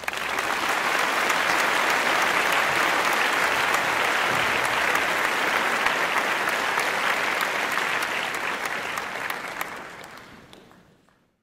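A large crowd applauding: a dense wash of many overlapping claps, holding steady and then fading away over the last few seconds.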